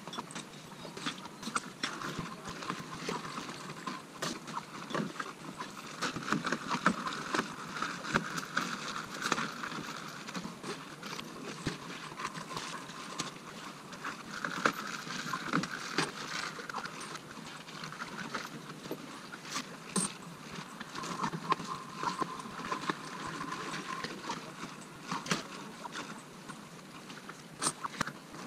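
Thin pond ice being broken up with a long pole: an irregular run of sharp cracks, knocks and clatter of ice.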